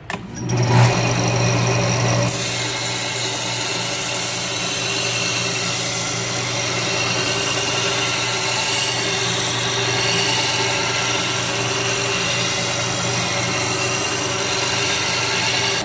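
Belt sander motor starting up with a steady hum, then from about two seconds in a steel meat cleaver's edge being ground on the abrasive belt, a steady hiss over the hum. This is the cleaver's second side being ground to a bevel of about 20 degrees.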